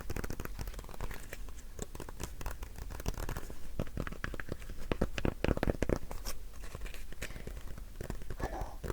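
Close-miked crinkling and crackling of an object being handled, with dense irregular crackles that grow louder in the middle.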